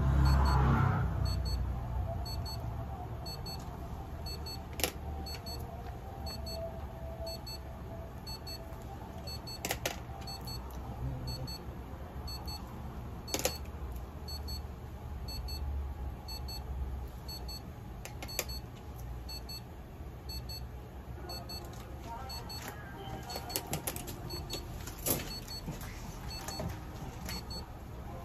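A steady low machine hum, louder for a moment in a brief rush of noise at the very start, with a faint high beeping that repeats evenly throughout and a few sharp clicks.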